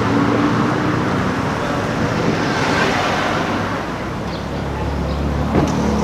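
Car engine running amid street traffic noise, with a deeper engine note building over the last couple of seconds and a short knock just before the end.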